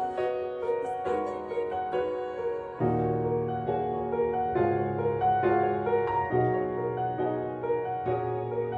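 Background music of held notes and chords, with a low bass line coming in about three seconds in.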